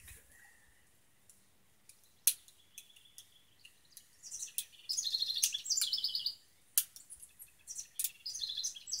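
Sharp metallic clicks as the 1889 Bodeo revolver's cylinder is turned by hand through the open loading gate; the loudest comes about two seconds in, and there are a few more later. A songbird sings short, rapid, high trilled phrases several times in the second half.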